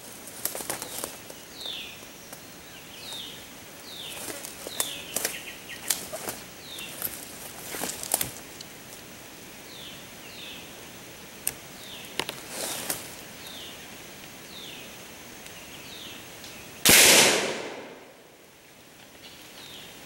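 Footsteps crunching and snapping through dry leaves and twigs on the forest floor, while a bird repeats a short call that slides down in pitch about once a second. About 17 seconds in comes a single loud, sharp bang that dies away over about a second.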